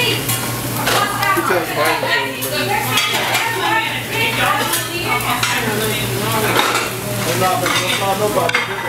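Busy diner noise: food sizzling on the grill behind the counter, with cutlery and dishes clinking and overlapping voices in the background. A steady low hum runs underneath.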